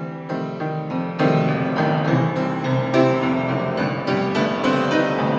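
Blues piano played solo in an instrumental break, chords struck again and again with no voice over them.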